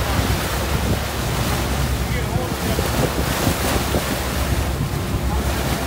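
Wind buffeting the microphone over the steady rush and splash of seawater along the hull of a moving fishing boat.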